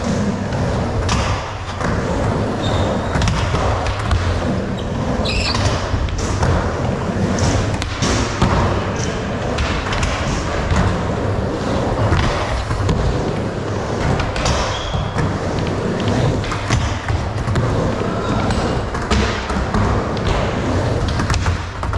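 Skateboard riding back and forth on an indoor halfpipe ramp: a steady rumble of the wheels rolling on the ramp, with repeated thuds and clacks of the board, echoing in a large hall.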